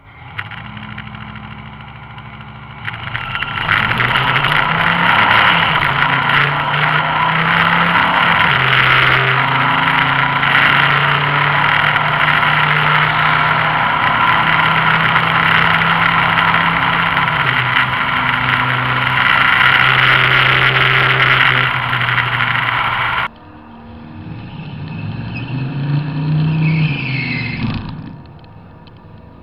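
Chevrolet Silverado pickup's engine at wide-open throttle down a drag strip, with heavy wind rush over the outside-mounted camera. It is floored from the launch, with a step up in sound about three seconds in, and above about 3500 rpm it pops, crackles and stutters, a misfire the owner never managed to fix. The sound cuts off suddenly about 23 seconds in, then swells and fades once more before the end.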